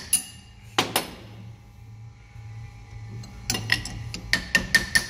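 Small hammer tapping a two-jaw puller to work a tapered roller bearing off a Nissan Patrol axle part, each blow a sharp metallic tap with a ringing note. One tap about a second in, then a pause, then steady tapping at about four a second through the second half.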